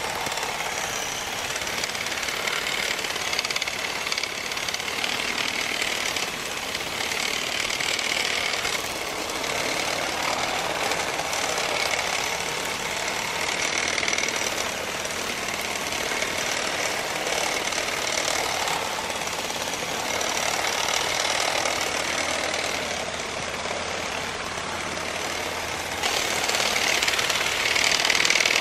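Motorized olive rake (olive harvester), a pair of rake combs driven by a small motor on a long pole, running steadily as it vibrates olives off the branches; a little louder near the end.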